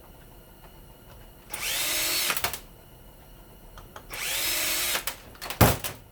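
Power drill run in two bursts of about a second each, its whine rising as the motor spins up. Then a few sharp knocks near the end.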